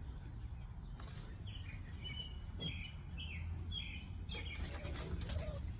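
A small bird chirping a quick series of short, high notes over a steady low rumble, followed near the end by a few sharp clicks or rustles.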